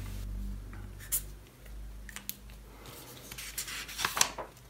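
Felt-tip marker writing on paper, with a sharp click about a second in. Near the end a sheet of paper rustles as it is flipped over.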